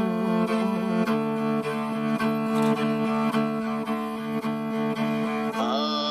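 Background music: bowed strings playing a melody over a steady held drone, with a light regular beat. Near the end a new, wavering melody line comes in.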